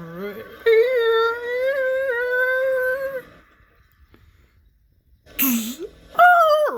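A person's voice holding one long wavering wail for about two and a half seconds, a vocal imitation of a sound effect. After a pause comes a short breathy hiss, then a brief call that falls sharply in pitch near the end, like a meow.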